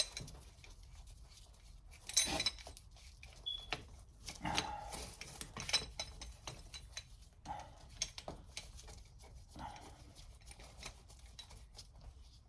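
Scattered metal clicks and knocks of a Wheeler-Rex copper crimp shutoff tool being worked on a crimped copper water main, with a few short louder sounds about two, four and a half, and nine and a half seconds in.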